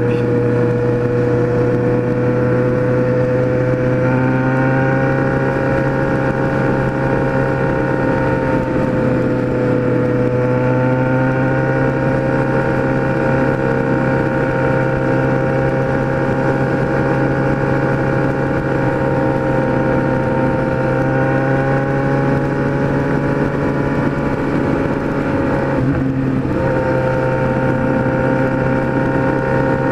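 Kawasaki Z1000's inline-four engine running at a steady cruising pace through a four-into-one exhaust, heard from the rider's seat. The note fills out about four seconds in, dips briefly about twenty-six seconds in as the throttle is eased, then holds steady again.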